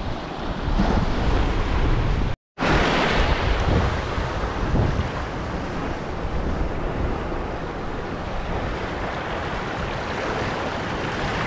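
Sea waves washing and fizzing over rocks, with wind rumbling on the microphone. The sound cuts out completely for an instant about two and a half seconds in.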